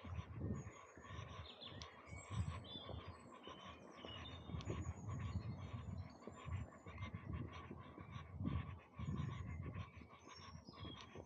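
Birds chirping and singing in short high notes over an uneven low rumble of wind on the microphone.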